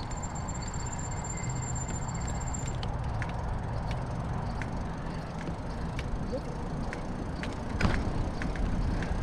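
Bicycle rolling along a path: a steady rush of tyre and wind noise with scattered light clicks and rattles, and a louder bump about eight seconds in.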